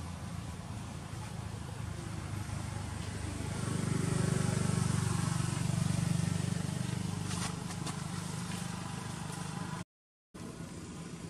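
A motor vehicle's engine running with a low, steady hum that grows louder for a few seconds in the middle, then eases off. A few sharp clicks follow, and the sound cuts out for about half a second near the end.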